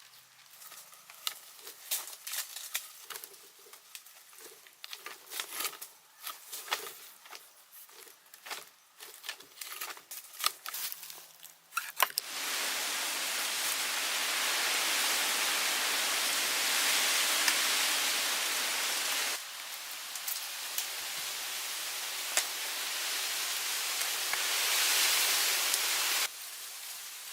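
Crackling and snapping of twigs and dry leaves being handled, then about halfway through a steady hiss of rain that starts abruptly and shifts in level twice.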